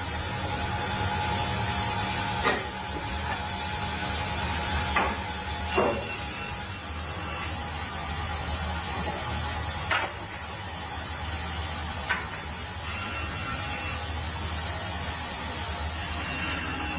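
A steady hiss and low hum, with five sharp knocks spread out at intervals of one to four seconds.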